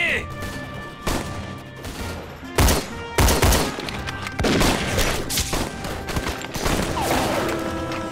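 Battle gunfire: irregular rifle shots and volleys, the loudest cluster between about two and a half and three and a half seconds in, over dramatic background music.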